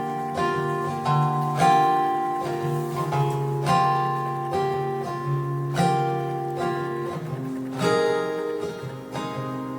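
Acoustic guitar playing the instrumental intro of a ballad: chords strummed about once or twice a second, each ringing and fading before the next.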